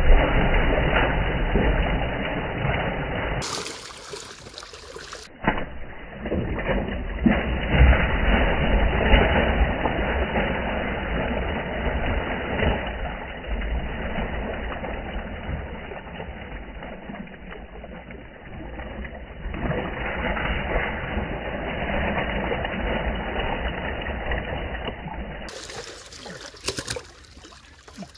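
Large netted fish thrashing and splashing in the shallow water of a tarp-lined boat hold, with water sloshing and slapping. The splashing comes in bouts, eases briefly about four seconds in, and fades near the end.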